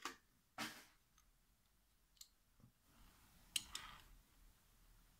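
Near silence with a handful of faint clicks and a short rustle about three and a half seconds in: a die-cast 1967 Mustang toy car being handled and set down on a plastic display turntable.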